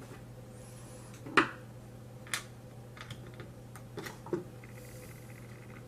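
Scattered small clicks and light knocks of pistol parts and tools being handled on a hard work surface, the loudest knock about a second and a half in.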